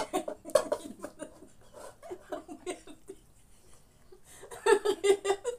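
Women laughing and giggling, with a louder run of quick laughs near the end.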